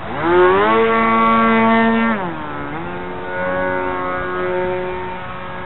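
Scratchbuilt foam RC plane's motor and propeller. The pitch climbs quickly as the throttle opens, holds high for about two seconds, then drops and settles at a lower, steady pitch. It is loudest near the start.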